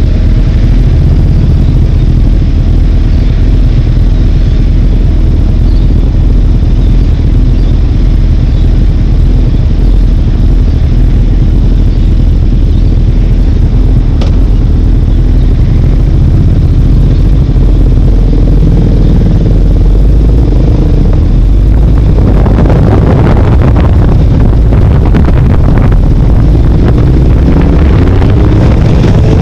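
Motorcycle engine running at low speed in slow traffic, a steady low note. About two-thirds of the way through it gets louder and rougher as the bike speeds up, and near the end the engine note climbs.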